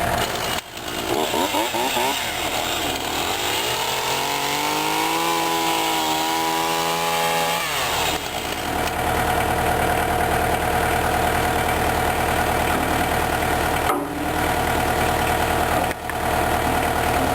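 Compact tractor engine running under work, revving up steadily for a few seconds near the middle and then dropping back.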